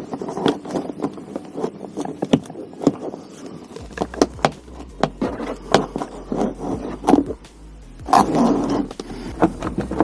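Hands working a wiring harness into the gap between the dashboard and the A-pillar trim: irregular rustling and scraping with sharp clicks and knocks. A low steady hum comes in about four seconds in.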